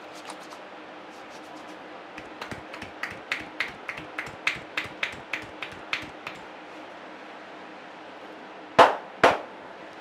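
Barber's hands at work in a head massage: a run of quick, sharp taps or cracks, about three a second, then two much louder hits half a second apart near the end.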